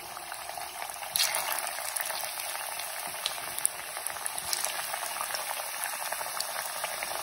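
Crumb-coated chicken pieces deep-frying in hot oil: a steady sizzle with small crackling pops, which jumps louder about a second in.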